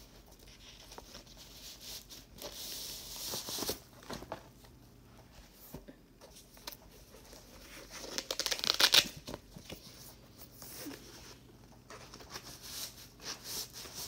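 Packaging rustling and crinkling as mounting straps are pulled out of a box, in irregular bursts, loudest about eight to nine seconds in.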